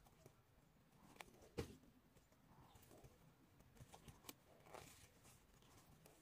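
Near silence, with a few faint clicks and soft rustles of a crochet hook drawing yarn through loops of Tunisian crochet; the clearest click comes about one and a half seconds in, and a soft rustle near the end.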